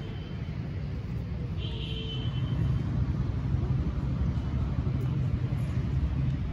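Steady low outdoor rumble, with a brief high tone about one and a half seconds in.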